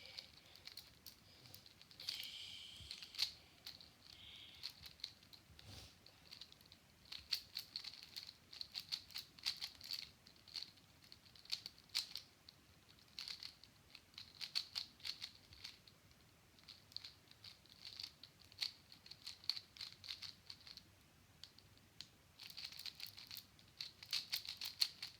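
A plastic 3x3 Rubik's Cube being turned quickly while it is solved. Its layers give irregular runs of rapid, sharp clicks and clacks.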